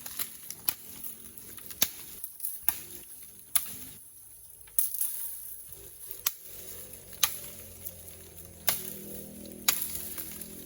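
Sharp, irregular cracks and knocks, about one a second, as of dry wood and brush being broken or struck, over a steady high insect drone.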